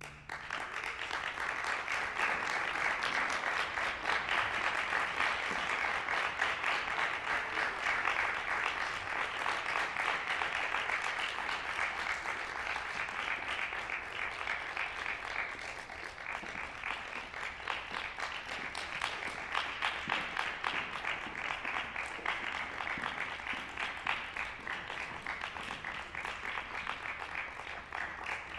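Audience applauding, a dense patter of many hands clapping that starts right as the music ends and eases slightly toward the end.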